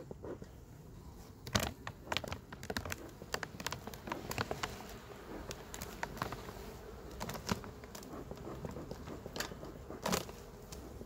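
Honeybees buzzing steadily over an opened hive while the thin plastic foil cover is peeled back off the frames, crinkling and crackling, with scattered clicks from the hive tool. A sharper click comes about a second and a half in and another near the end.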